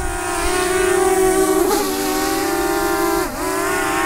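DJI Mavic Air quadcopter hovering low and close, its four propellers giving a steady whine made of several pitches. The pitch dips briefly about halfway through and again near the end as the motors change speed.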